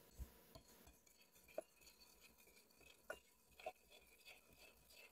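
Wire whisk beating egg yolks and condensed milk in a glass bowl: faint, irregular clinks and taps of the metal whisk against the glass, with a few sharper ones.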